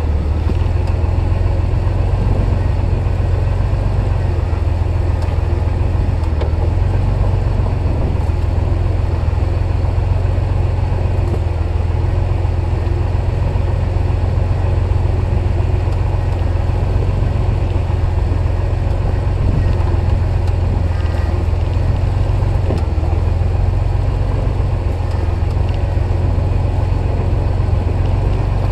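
Off-road vehicle's engine running with a steady, deep drone as it crawls along a rough forest trail.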